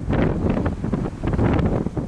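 Wind buffeting the camera's microphone, a low rumble that surges in uneven gusts.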